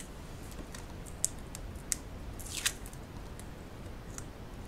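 Light crackles and ticks with one short rustle about two and a half seconds in: paper and double-sided tape being handled and pressed down onto cardstock.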